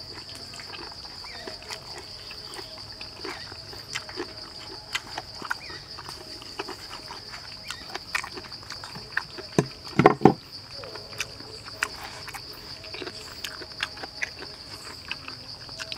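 Steady high buzzing of insects, with scattered small clicks and crackles from crisp roast pig skin and meat being torn by hand and chewed. A louder short burst of eating noise comes about ten seconds in.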